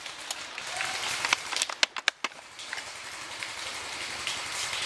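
Airsoft gunfire: a scatter of sharp cracks and clicks, most of them bunched in the first half, over a steady rustling hiss.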